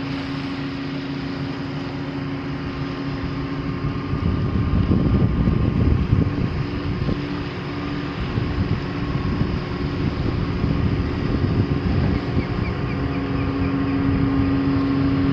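Diesel engines of a towboat pushing a crane barge past, a steady droning hum that grows slowly louder as the boat draws near, with a rougher low rumble for a few seconds in the middle.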